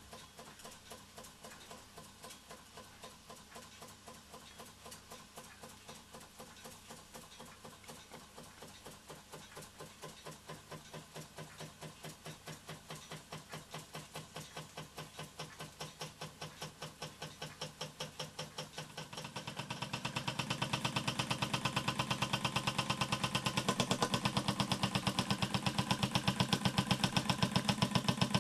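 Wylie Harris toy steam engine running under steam, its single small cylinder giving a fast, even chuffing beat as the brass flywheel turns. The beat grows clearly louder about two-thirds of the way through.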